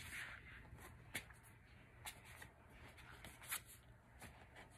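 Faint rustling of thick photobook pages being handled and turned by hand, with a few soft paper ticks.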